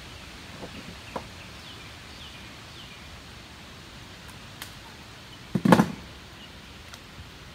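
A small channel catfish being landed into a plastic kayak: a quick cluster of several thumps about five and a half seconds in, over a steady hiss of wind and river.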